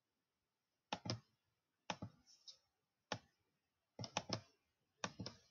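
Computer mouse clicking: single clicks and quick runs of two or three, about once a second.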